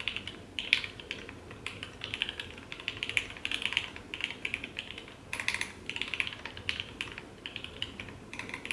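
Typing on a Shirei40 mechanical keyboard with 205g0-lubed Lavender switches, GMK keycaps and an acrylic plate and case: fast runs of keystrokes in short bursts with brief pauses between. Picked up by the camera's built-in microphone.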